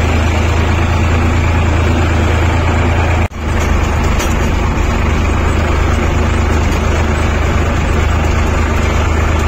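Tractor engine running steadily while pulling a land leveller across a field, a loud constant drone with a brief dropout about three seconds in.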